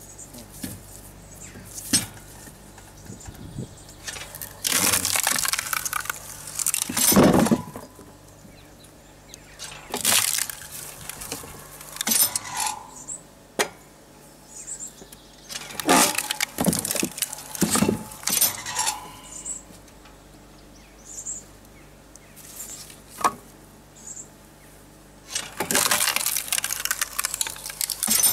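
Logs being split on a water-hydraulic wood splitter: four bouts of wood creaking and cracking apart, each lasting two to three seconds. Sharp knocks of wood on wood and on the machine fall between them, over a faint low steady hum.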